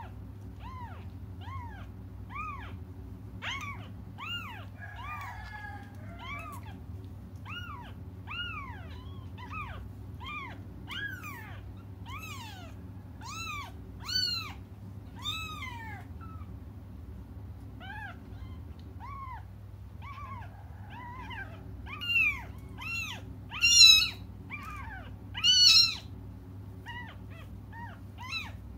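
Very young kittens mewing over and over, crying for their mother. Each high mew rises and falls in pitch, about one a second, and the loudest, shrillest cries come in a run near the end.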